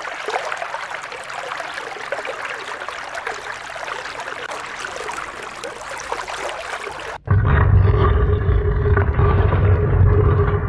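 Sea-water sound effect: an even rushing hiss like waves against a hull. About seven seconds in it cuts abruptly to a louder, deeper rumbling track with a steady hum through it.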